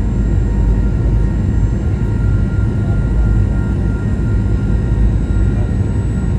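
Steady cabin noise inside a Boeing 737-900: a dense, even rumble of engines and airflow with a few faint steady whining tones above it.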